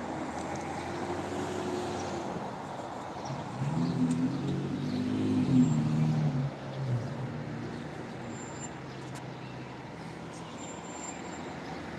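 A pickup truck's engine passing on the road, swelling from about three and a half seconds in and dropping in pitch as it fades after about seven seconds. Under it is a steady low hum of distant traffic.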